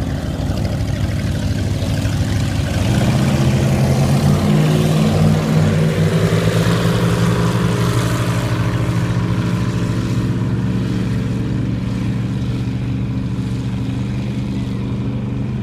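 Twin rebuilt engines of a 34-foot Scarab powerboat opening up about three seconds in, the pitch rising and then holding at a steady high speed, over a rushing noise of water and wind. The freshly rebuilt engines run strongly.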